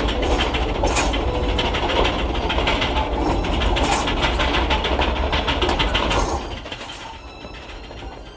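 Loud, steady rattling with a low rumble, like a heavy vehicle running, that drops away about six seconds in.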